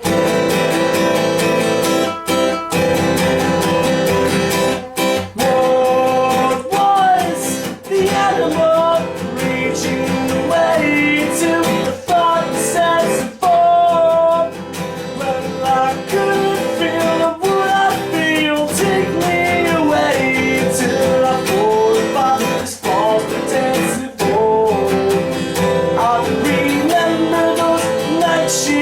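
Acoustic guitar strummed in a live acoustic song performance, with a melody line weaving over the chords through the middle of the passage.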